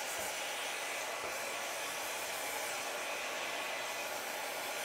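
Handheld hair dryer blowing steadily, drying the glued hairline of a lace-front wig.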